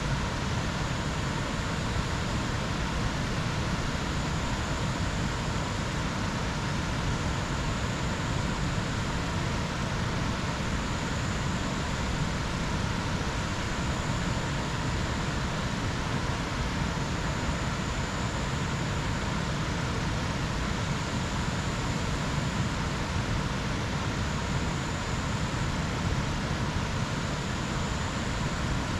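Jungle ambience: a steady, even rushing noise with a thin high tone that swells and fades every few seconds.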